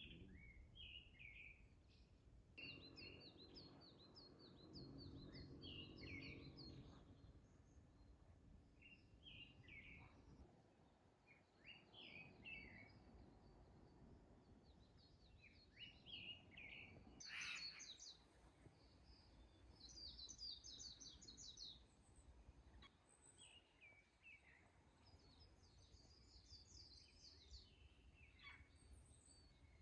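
Faint spring forest birdsong: several small birds chirping and trilling in short phrases. A low, steady hum underlies the first few seconds.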